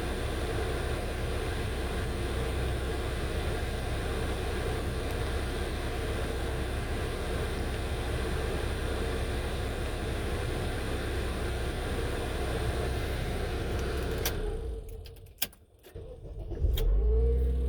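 2008 Honda Accord's 2.4-litre four-cylinder engine running steadily at idle. About fourteen seconds in the sound cuts off abruptly and a few sharp clicks follow, then the engine starts up and runs again near the end.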